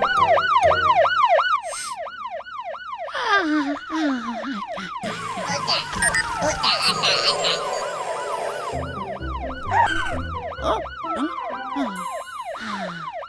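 Cartoon fire-engine siren in a fast yelp: a wailing tone sweeping rapidly up and down, about three or four times a second. There are a few short downward-sliding tones and background music underneath.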